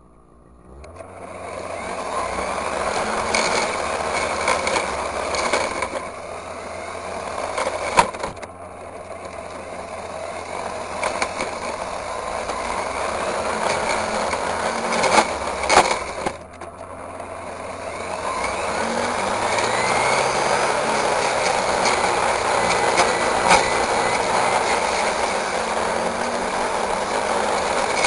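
Petrol brush cutter with a metal blade running at high speed, cutting weeds and grass. Its engine comes up about a second in, dips briefly twice and climbs again, with a few sharp clicks along the way.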